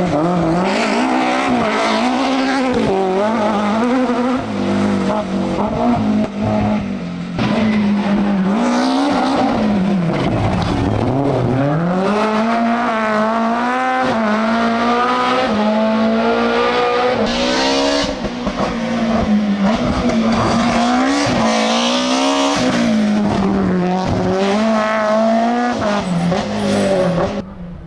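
BMW M3 E30 Group A rally car's four-cylinder engine driven flat out, the revs climbing and dropping again and again through gear changes and lifts.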